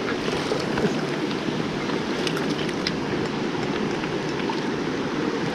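Mountain stream rushing over rocks, a steady full sound of running water, with a few faint ticks on top.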